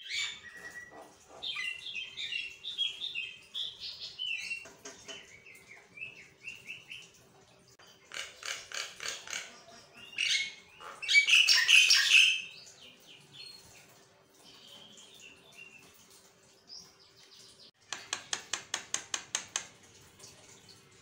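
Javan myna singing a varied run of chirps, whistles and harsh squawky notes, with its loudest harsh burst about halfway through and a fast run of sharp repeated notes near the end.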